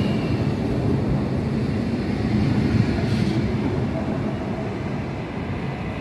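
Train passing through a station on platform 4 without stopping: a loud, steady rumble of the train on the rails that begins to fade near the end.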